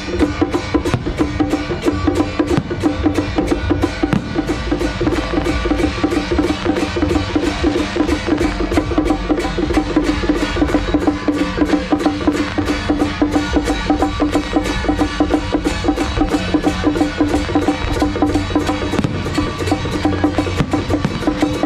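Loud festival procession music: a fast, even percussion beat over a steady held pitched tone.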